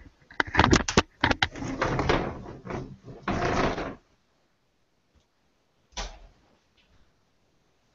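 A quick clatter of knocks and rustling close to a microphone, then a single thump about six seconds in.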